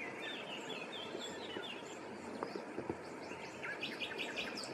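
Outdoor pond ambience: a steady background hiss with birds calling over it, a few short chirps in the first second and a quick run of repeated notes near the end.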